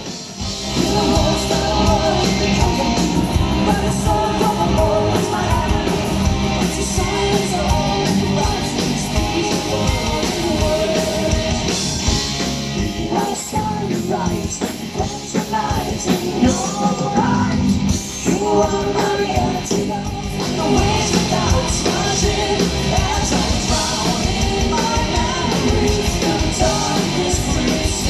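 Symphonic metal band playing live and loud: distorted electric guitars, bass and drums, with a female lead singer and a male singer. Recorded from the crowd on a phone.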